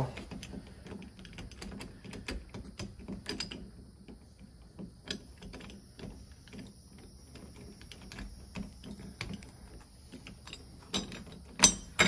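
Light metallic clicking and rattling of a Schlage lever door handle being pressed and twisted on its spindle to line up the keyways, with a louder click about a second before the end as the handle seats.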